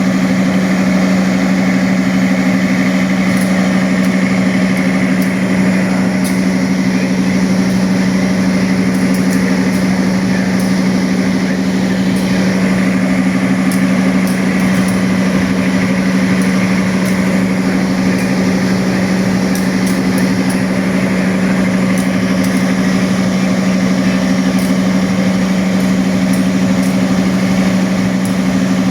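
Diesel generator sets of a 2019-batch stainless-steel railway power car (generator car) running at constant speed: a steady drone with a strong, unchanging low hum.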